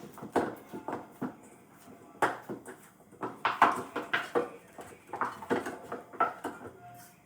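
Irregular knocks, taps and clatter of objects being handled, coming in uneven clusters.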